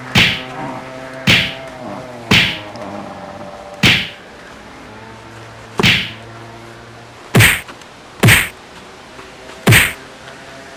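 Eight sharp whacking blows at irregular intervals, as a person lying on the ground is struck repeatedly; the last three come in quicker succession and are the loudest.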